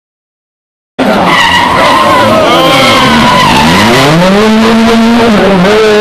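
Silence for about the first second, then a rally car engine cuts in loud, its revs dropping and climbing again several times as the car brakes and accelerates through a bend.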